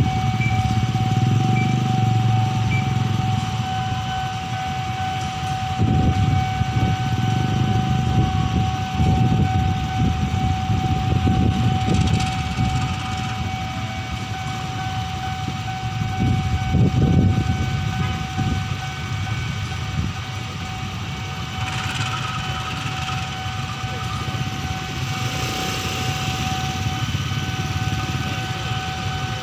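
Motorcycle engines idling and revving in a queue at a closed railway level crossing, over a steady high tone from the crossing's warning alarm.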